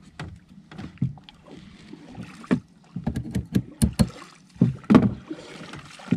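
Irregular knocks and clatter in a small boat, with splashing of water about halfway through, as a longline is hauled in with a fish on it.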